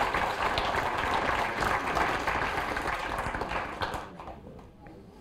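Audience applauding, dense clapping that dies away about four seconds in.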